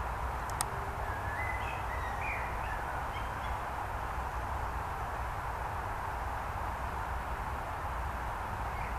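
Woodland ambience: a steady wash of background noise with a low rumble underneath, and a few short, high bird chirps between about one and a half and three and a half seconds in.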